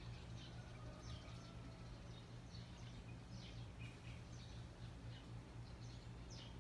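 Faint bird chirps, many short high notes falling in pitch, scattered irregularly over a low steady hum.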